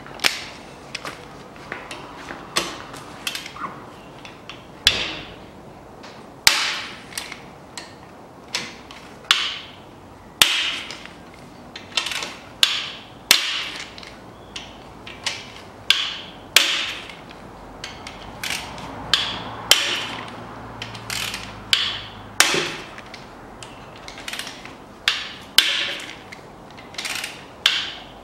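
Ratchet wrench with a 14 mm 12-point socket loosening the crankshaft main bearing cap bolts, clicking sharply again and again, a bit more than once a second, as the handle is worked back and forth.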